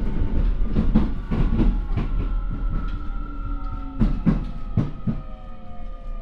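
Keio 9000 series electric train with a Hitachi IGBT inverter running, its wheels knocking over rail joints at slowing intervals. The inverter whine glides down in pitch as the train slows under electric braking.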